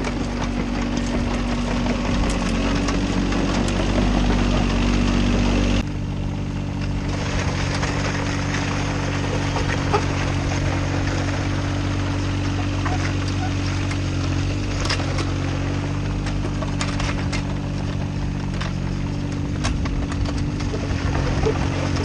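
Mini excavator's diesel engine running steadily as the machine comes down the loading ramps off a truck; about six seconds in the sound changes abruptly, and the machine pushes gravel with its dozer blade, with scattered knocks and scrapes of stones.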